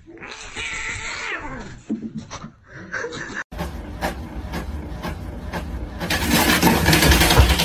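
A cat's drawn-out yowl, wavering in pitch. About three and a half seconds in it gives way to the clicking and whirring of an inkjet printer running, much louder near the end.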